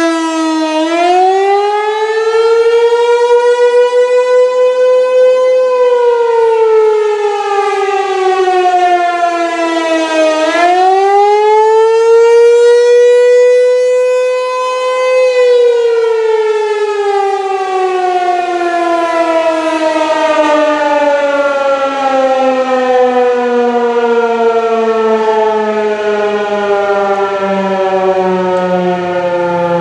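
Fulton T-128 fire siren sounding the attack signal for a fire call. Its pitch rises for about five seconds, falls for five, and rises again. It then slides slowly and steadily down as the siren winds down, still sounding at the end.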